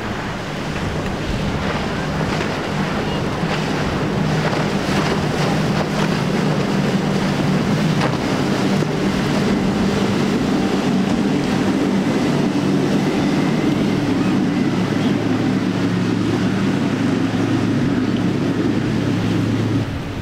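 Triple Mercury 350 hp outboard motors running at speed on a planing centre-console, a steady engine drone with hull spray and wind on the microphone; the engine note changes about eight seconds in.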